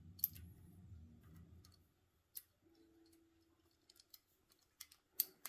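Faint scattered metallic clicks and taps of an Allen wrench and fittings being worked by hand on a gym machine's cable hardware, louder and quicker near the end. A low hum fades out about two seconds in.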